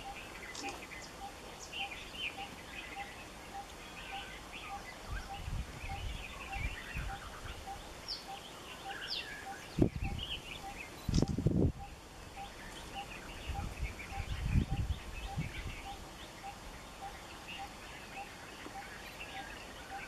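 Small wild birds chirping and calling, with one short note repeated evenly about twice a second. A few low bumps come about halfway through.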